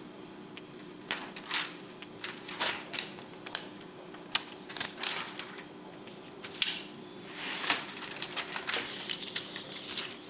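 Thin plastic membrane sheets and plastic parts of a dismantled computer keyboard handled by hand: irregular crinkling and sharp plastic clicks, with a longer rustle near the end.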